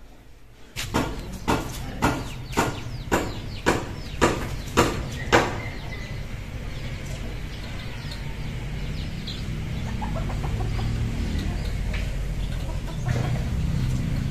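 Chicken clucking: a quick run of about nine loud clucks, roughly two a second, over the first half, then fainter outdoor background noise.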